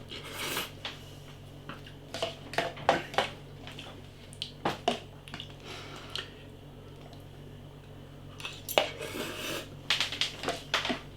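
Cutlery clinking and scraping against an instant-noodle pot while eating from it, in scattered short clicks with a few longer scrapes.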